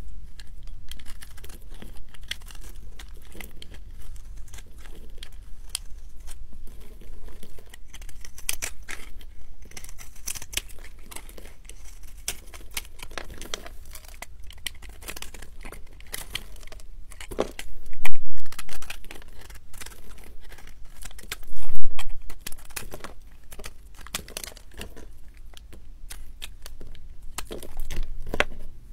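A knife shaving and carving a ball of pressed recycled soap, with crisp scraping and crunching as flakes break off. Two louder thumps stand out a little past the middle.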